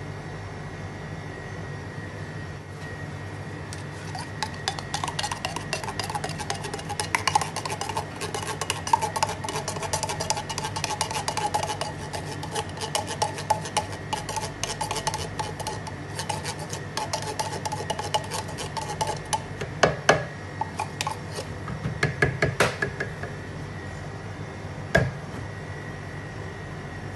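A metal utensil stirring and scraping a thick milky mixture in a plastic blender jug: rapid clinking and scraping from about four seconds in, then a few sharper knocks near the end. A steady low hum runs underneath.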